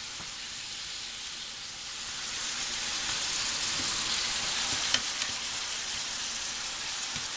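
Sliced mushrooms and bell pepper sizzling in a frying pan, a steady hiss that grows louder about two seconds in, with one sharp tick about five seconds in.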